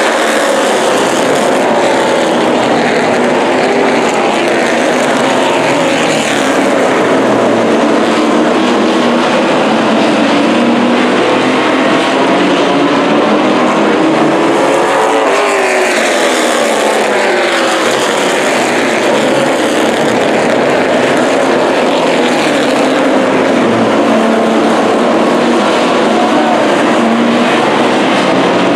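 A pack of street stock race cars running at racing speed, their engines rising and falling in pitch as they come past and go away, with one close pass about halfway through.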